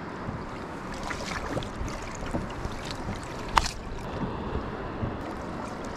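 Steady wind and water noise around a boat, with one sharp knock about three and a half seconds in.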